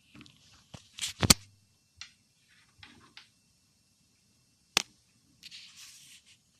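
Cats scuffling indoors: scattered knocks and thumps with small clicks, the loudest a pair of sharp knocks about a second in and another near five seconds, then a short rustling hiss.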